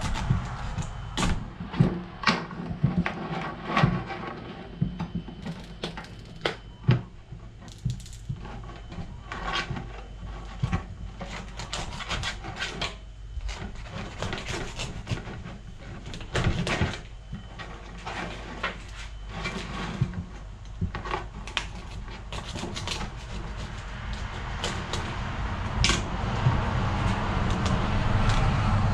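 Ornate crayfish shell being cut and twisted apart by hand with a small knife on a plastic cutting board: irregular clicks, cracks and knocks of shell and blade, over a steady low hum.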